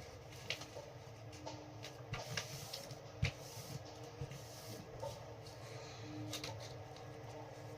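Faint rustling and scattered soft ticks of paper being handled and creased by hand.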